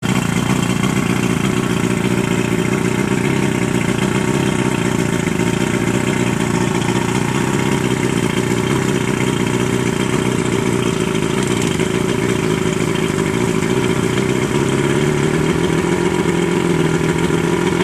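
A 140 hp Evinrude V4 two-stroke outboard running steadily on flushing muffs, out of the water, with a slight shift in pitch near the end. The owner says it lacks power and sounds like it has a bad fuel mix.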